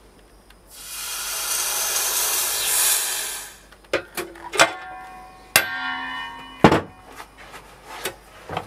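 A steady hiss lasting about two and a half seconds, then a run of sharp metallic clinks and knocks from casting tools against the metal moulds, several leaving a brief ring.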